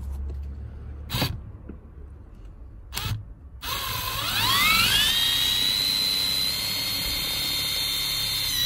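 Cordless screwdriver driving a screw through a car speaker's mounting tab into the plastic trim panel. Two clicks come first, then the motor whine starts a little before halfway, rises in pitch, holds steady and cuts off at the end.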